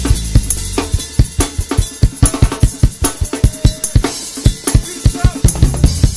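Drum kit playing a break in a live ska band: a fast run of kick drum, snare and rimshot hits, several a second. The low sustained bass note under the opening second falls away about a second in, leaving the drums on their own.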